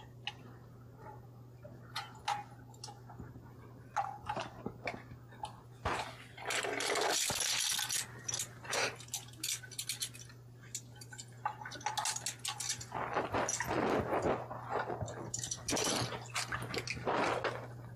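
Water splashing and sloshing, with small clinks and knocks of gear, as a person works in the water beside a swamped boat. It comes in two longer bouts, around the middle and again later, and a steady low hum runs underneath throughout.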